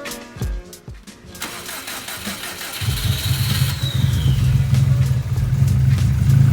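Background music with drum hits cuts off about a second and a half in. A Subaru WRX STi's turbocharged flat-four engine, with a full aftermarket exhaust, is then cranked by the starter and fires about three seconds in. A high starter whine falls away as the engine settles into a loud, steady idle.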